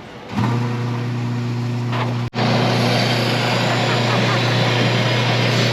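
Commercial in-store coffee grinder starting up about a third of a second in and running steadily, a loud low motor hum over a gritty grinding noise. It cuts out for an instant a little after two seconds, then runs on. The grinder, thought broken, is working now that it has been plugged in.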